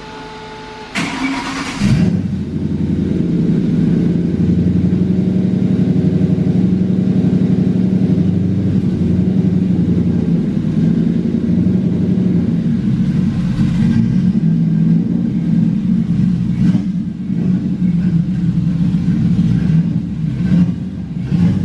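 Turbocharged Ford Crown Victoria V8 fitted with a large S475 turbo, cranking and catching about a second in, then settling into a steady, throaty idle.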